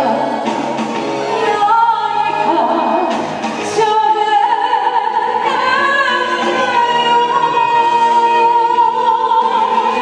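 A woman singing a Japanese song into a microphone over instrumental backing. She holds one long wavering note through the second half.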